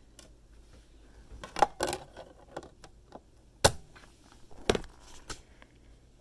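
Discs being swapped in a disc player: a handful of sharp plastic clicks and taps as a disc is lifted off the spindle and a Blu-ray disc is set in its place, the loudest about a second and a half in, near four seconds and near five.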